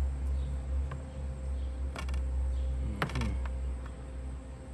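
A few light taps and clicks as smoked rib pieces are handled and set down on a wooden cutting board, over a steady low hum.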